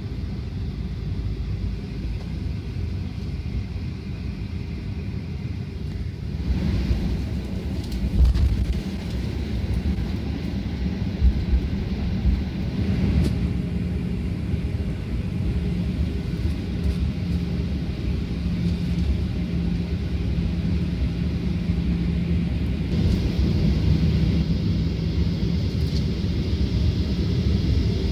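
Cabin noise of a Boeing 737-800 taxiing, heard from a window seat beside its CFM56-7B engine: a steady low rumble and hum at taxi power. A hiss gets louder about six seconds in and again near the end, and there are a couple of brief thumps in the first half.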